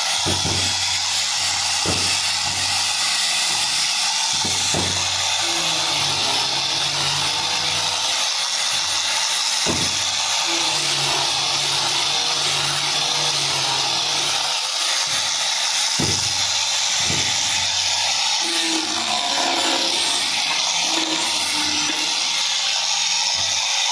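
Electric angle grinder with a sanding disc running steadily, its pad rubbing over a wooden board: a constant hiss with a motor whine and a few light knocks as the tool is moved.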